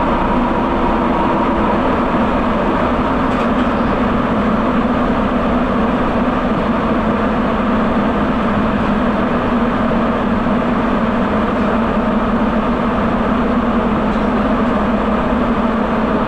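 Sapporo subway train on rubber tyres running through a tunnel, heard from inside the car as a loud, steady rumble with a constant drone.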